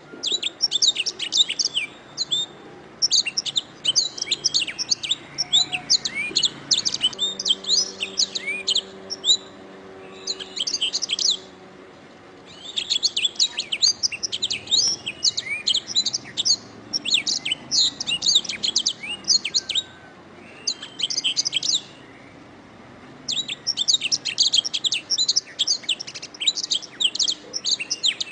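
Domestic canary singing: long phrases of rapid high trills and chirps, broken by short pauses of a second or two.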